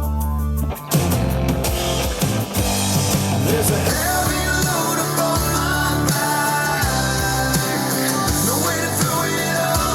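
Rock song with singing played back through a portable Bluetooth speaker and recorded for comparison. The level drops briefly about a second in, then a fuller passage with vocals starts.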